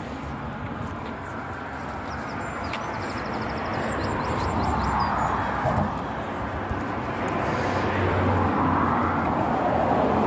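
Road traffic passing on the bridge beside the footway: a steady hiss of tyres and engines, with vehicles swelling past about halfway through and again near the end.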